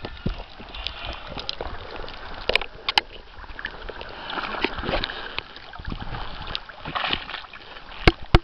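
Water sloshing and splashing against a camera held half in and half out of the water at the surface, swelling and fading unevenly. Sharp clicks come twice about a third of the way through and twice near the end.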